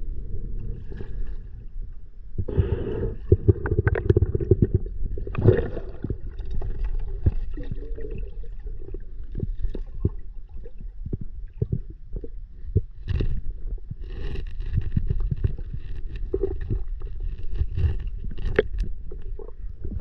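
Underwater sound of a rocky stream bed heard through a submerged camera: a muffled rush of moving water with many short knocks and clicks as the bottom is disturbed.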